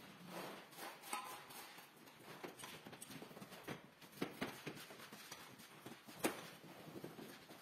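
A floor squeegee scraping soapy water off a soaked rug onto a tile floor, with rubber boots stepping on the wet tiles: irregular soft knocks and scrapes.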